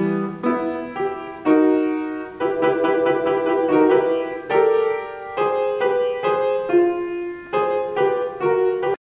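Grand piano being played: a melody of single struck notes and chords at a moderate pace, each note ringing and fading before the next. The sound cuts off abruptly at the very end, a dropout in the recording.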